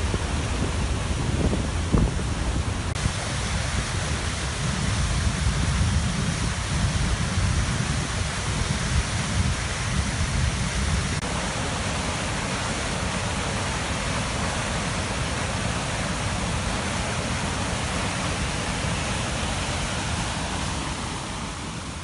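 Flood-swollen creek and waterfall rushing: a steady, dense wash of whitewater noise, heaviest in the low end. A brief bump sounds about two seconds in.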